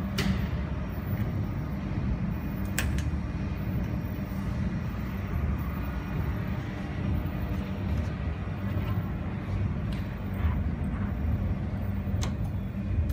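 Steady low hum of a jewelry laser welding machine's cooling fan running, with a few sharp clicks, the last one near the end as a hand works the switch on the machine's side panel.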